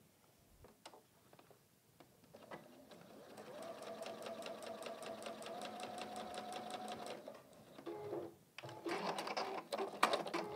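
Domestic electric sewing machine stitching a short seam across the corner of a small fabric square, a rapid, even run of stitches that builds up about two seconds in and stops after about five seconds. Louder, irregular sounds follow near the end.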